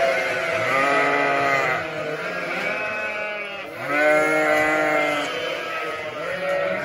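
Sheep bleating: several long calls from more than one animal, overlapping one another.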